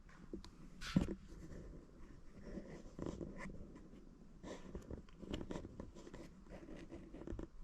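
Faint scattered rustling and light clicks, with a sharper knock about a second in.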